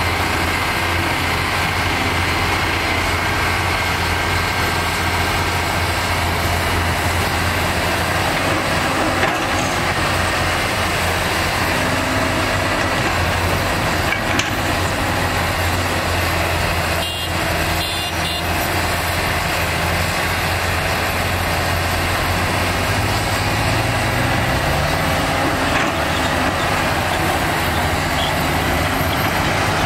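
Hyundai crawler excavator's diesel engine running steadily under load as it digs and swings, a loud, even, low drone. About three-quarters of the way through, an engine note rises in pitch.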